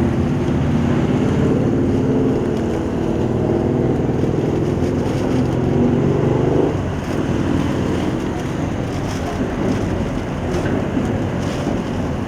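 A motor vehicle engine running with a low hum whose pitch creeps up slightly, cutting off about seven seconds in; after that, a steady outdoor background rumble with some wind noise.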